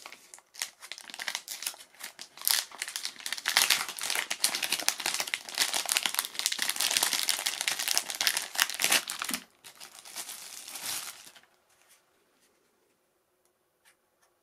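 Plastic packaging bags rustling and crinkling as hands work a small plastic tackle box out of them. The rustling stops about four-fifths of the way through, leaving only a few faint clicks.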